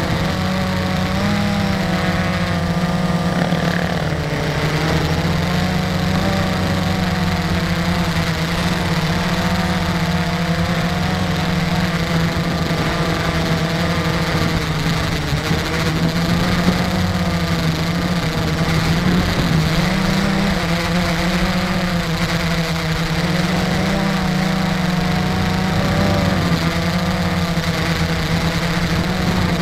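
Camera drone's motors and propellers humming steadily while it hovers, the pitch wavering slightly as the rotors adjust.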